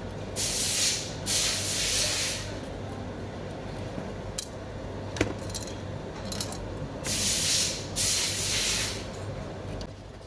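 Four short hissing spray bursts in two pairs, one pair near the start and one near the end, with a sharp click about five seconds in.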